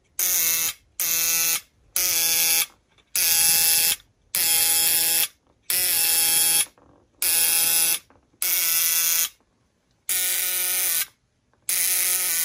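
Buzz coil (trembler spark coil) run on 12 volts, its vibrator contacts buzzing in about ten short bursts of under a second each as it is switched on and off, firing sparks across a test gap. Its adjustment may still not be quite right.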